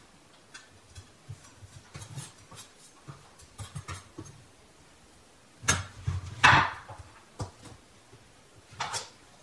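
Dishes and kitchenware clinking and knocking as they are loaded into the dishwasher: a scattering of light clicks, with the loudest clatters about six seconds in and another near the end.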